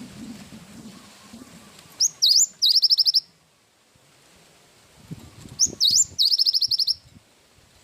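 Cinereous tit (gelatik batu) singing two loud phrases about three seconds apart. Each phrase is a couple of quick rising whistled notes followed by a fast run of repeated high notes.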